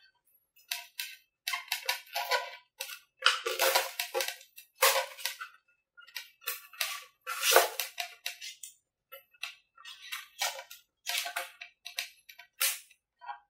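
Hands working on a model airplane's airframe: irregular rustling and scraping strokes, each under a second, with silent gaps between them.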